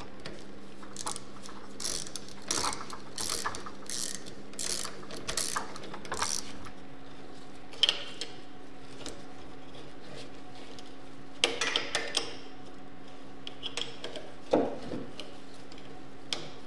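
Socket ratchet clicking in short runs as the crank arm bolt on a bicycle-style bottom bracket is tightened. Then a few separate metal clinks and clicks from a wrench as the pedal is threaded onto the crank arm.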